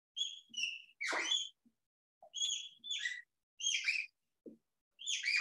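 Felt-tip marker squeaking against the glass of a lightboard as letters are written: a run of short, high squeaks with brief gaps between them.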